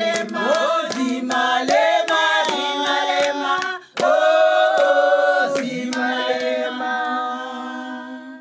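Group of voices singing a cappella in close harmony over sharp rhythmic hits, with a brief break just before halfway, then long held chords, the last one fading out.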